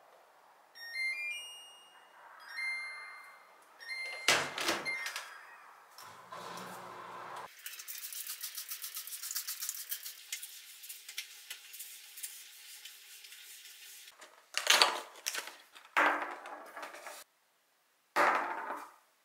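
Built-in dishwasher door pushed shut, followed by the dishwasher's electronic chime, a short rising run of beeps. Then a kitchen counter is sprayed with alcohol and wiped, a steady hiss with fine rapid scratching, and near the end three loud handling clatters.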